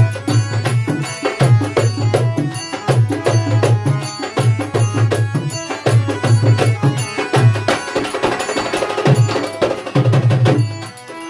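Harmonium and a two-headed barrel drum playing an instrumental passage of a Baul folk song, with the drum beating a steady, repeating low pattern under the harmonium's held chords.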